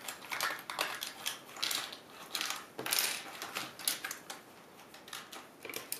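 Plastic keycaps clicking and rattling as they are handled and pressed onto mechanical key switches: a string of irregular sharp clicks.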